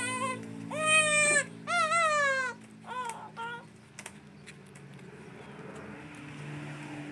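An animal calling nearby: about four high-pitched cries in the first three and a half seconds, each holding its pitch and then falling away, the loudest about a second in. A few faint clicks follow.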